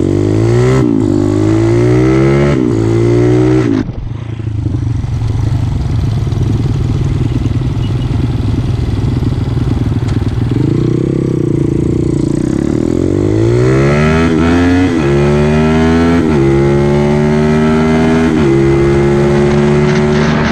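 Mini trail bike's small single-cylinder four-stroke engine accelerating up through the gears, its revs climbing and dropping back at each shift. It eases off to a low steady run for several seconds, then pulls up through the gears again from about two-thirds in. Wind buffets the microphone throughout.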